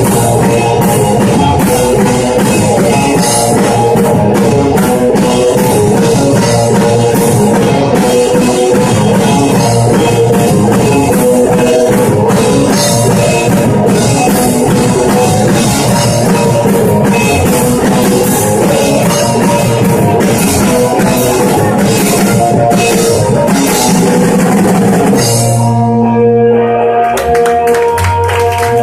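Live rock band playing an instrumental passage with full drum kit and electric guitars. About 25 seconds in the drumming stops and held guitar chords ring on.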